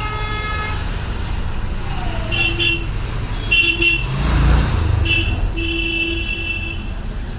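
Vehicle horns honking several times, short toots and one longer honk near the end, over a steady traffic rumble, with a vehicle passing by about halfway.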